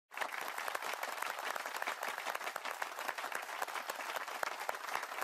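Applause from a crowd: many hands clapping densely and steadily, starting abruptly out of silence.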